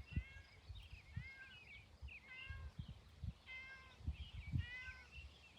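A cat meowing repeatedly in short, high calls, with soft low thumps of movement between them.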